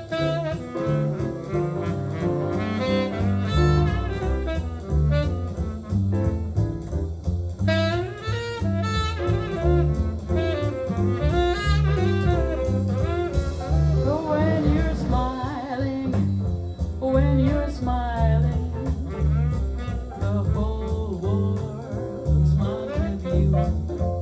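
Instrumental jazz played from a vinyl record over a home speaker system and heard in the room: a horn lead over a walking double bass, with the bass notes stepping along about twice a second.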